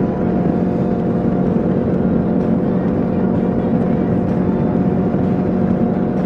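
Kawasaki KLR 650's single-cylinder four-stroke engine running at a steady cruise, its pitch holding even, under a constant rush of wind and road noise.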